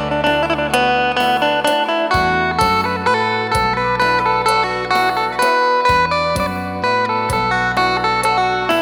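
Isan phin, a plucked Thai lute, amplified through a custom-made contact pickup, playing a fast run of plucked notes over low, held bass notes that change every second or so.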